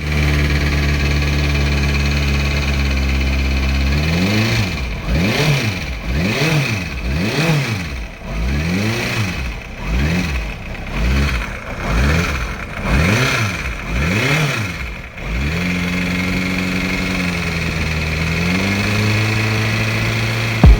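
2006 Kawasaki ZX-6R 636 inline-four engine idling, then revved in about eight quick throttle blips, each rising and falling, before settling back to a steady idle. It makes the timing chain noise of a loose cam chain tensioner.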